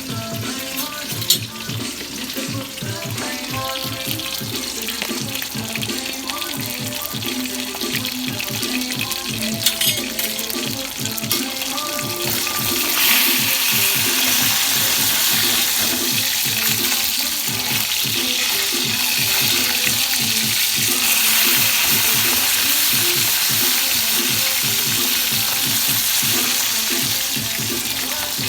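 Food frying in a pan over background music with a steady beat. About halfway through, a louder steady rush of running water starts and carries on, most likely a tap running into a sink.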